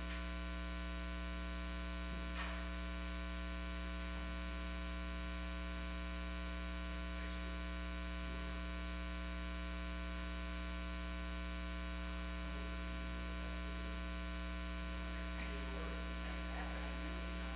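Steady electrical mains hum, a low buzz with many evenly spaced overtones, with a faint click about two seconds in.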